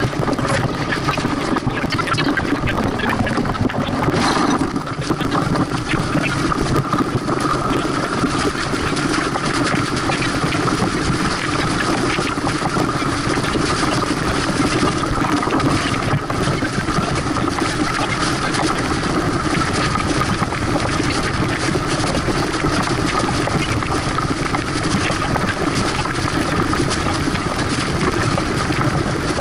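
Water rushing along a sailboat's hull and wind on the microphone, sped up eightfold into a loud, steady, dense rush.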